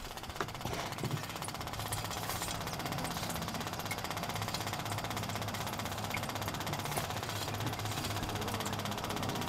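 Steady machine hum with a fast, even rattle from a running continuous waste-oil distillation unit and its feed pump.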